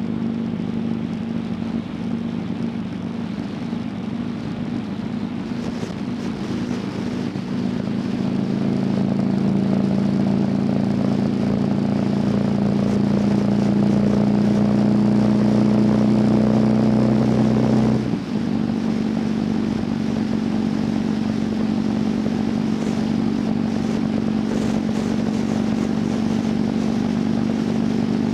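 Motorcycle engine running at road speed, with wind and road noise. Its note climbs slowly for about ten seconds, then drops suddenly, as when the throttle is closed, and runs steady and lower after that.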